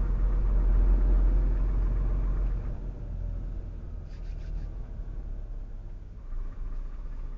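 Truck's diesel engine and drivetrain rumbling low inside the cab as it creeps forward in a queue of lorries. The rumble eases off about three seconds in.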